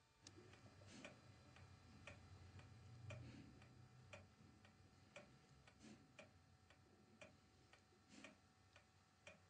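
Mechanical clock ticking faintly and evenly, about one tick every half second or so, with a low hum under the first few seconds.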